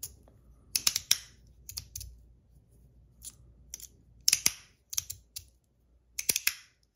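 Metal fidget slider being slid back and forth, snapping into place with sharp clicks at each end of its travel, often in quick pairs, at an uneven pace.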